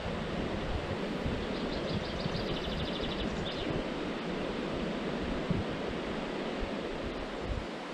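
River water running steadily over stones in shallow riffles.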